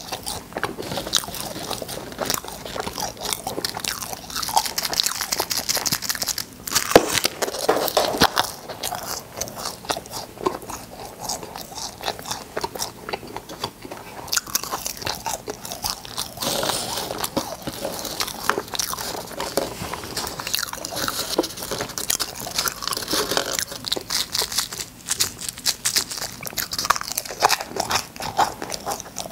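Close-miked crunching and chewing of cola-flavoured candy: a steady run of crisp bites and mouth crunches, with one loud crunch about seven seconds in.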